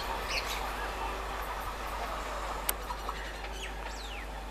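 Birds chirping in short high calls, several sliding steeply downward, over a steady background rumble and hum; one sharp click sounds a little past halfway.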